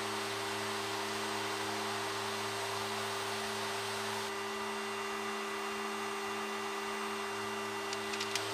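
Steady drone of a Fairchild Metro's Garrett TPE331 turboprop engines and propellers in cruise, heard in the cockpit as a low multi-tone hum over an even hiss. A few faint clicks near the end.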